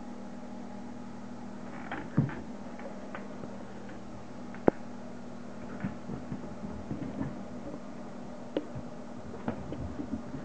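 Light taps and knocks of a puppy scrambling about with a stuffed toy on carpet: a thump about two seconds in, a sharp click near the middle, and scattered soft taps in the second half. A steady low hum lies under it all.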